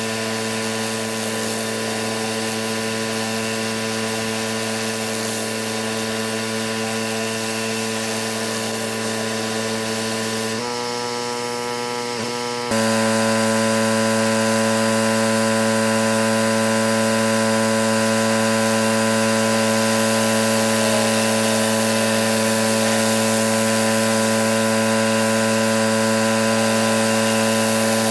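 Engine-driven pressure washer running at a steady speed with a steady hiss of spray. The sound thins and drops for about two seconds partway through, then returns louder.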